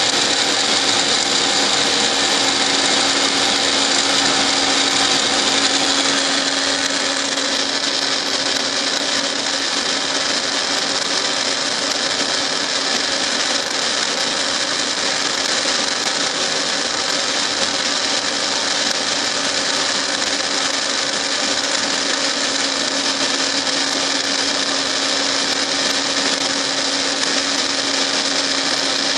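Milling machine running steadily with a whine from its gearing, its cutter cutting a helical groove into a metal shaft. The whine shifts slightly and gets a little quieter about seven seconds in.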